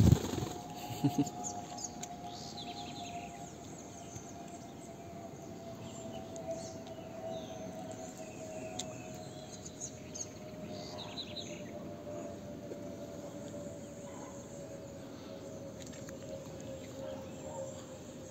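Outdoor ambience of insects and small birds chirping, with a steady hum that slowly falls in pitch throughout. Two or three sharp knocks come in the first second or so.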